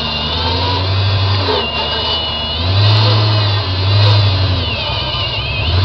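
Off-road trial buggy's engine revving in surges as it works to climb a steep rocky slope, with a high whine rising and falling alongside.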